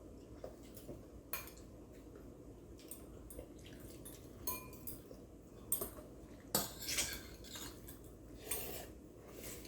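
Eating utensils clinking and scraping against bowls and plates during a meal, in scattered short knocks with one brief ringing clink about halfway through; the loudest clatter comes about two-thirds of the way in.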